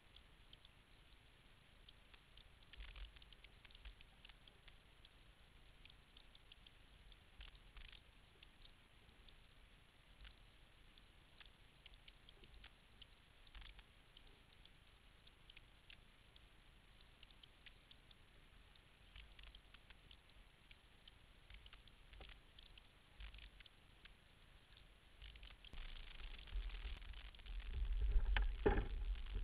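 Faint low wind rumble with scattered small clicks and crackles aboard a sailboat under way. It grows louder a few seconds before the end, with a heavier gust about a second before the end.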